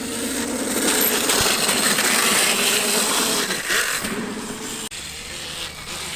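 Husqvarna EE 5 electric dirt bike being ridden: a steady rush of wind and tyre noise with a faint wavering whine from the electric motor.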